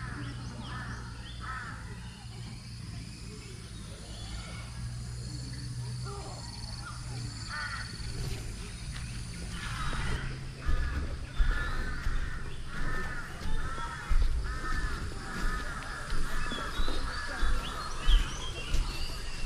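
A bird calling in a steady run of repeated calls, about two a second, starting about halfway in, over faint chirping from other birds.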